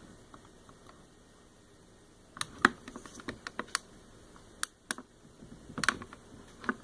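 Light, irregular clicks and taps of small plastic toy pieces being handled, starting about two and a half seconds in.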